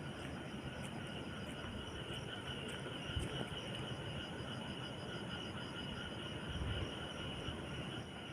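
Insects chirping steadily in a fast, even pulsing trill, over low gusty rumbling like wind on the microphone.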